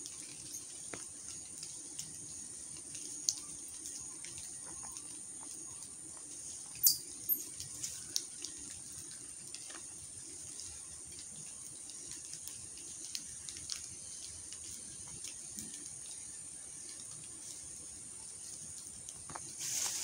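Water dripping from rain-soaked foliage in scattered soft ticks, over a steady high-pitched hiss. A few louder ticks come about seven to eight seconds in, and the sound grows busier near the end.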